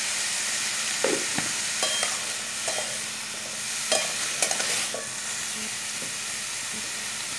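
A metal spatula stirring and tossing chopped bottle gourd and potato in a kadai, with several scrapes and clinks against the pan, over the steady sizzle of the vegetables frying in hot oil.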